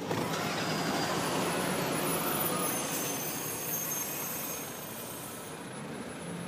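A truck driving past close by, heard as a rushing noise that swells at the start and eases off after about four seconds.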